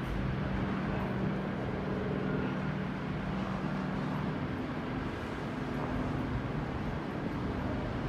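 Steady low machinery hum with a few held tones over an even, constant rumble, with no distinct events.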